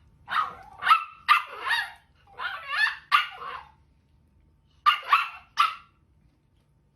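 A dog barking in short calls, about six in quick succession, then after a pause three more.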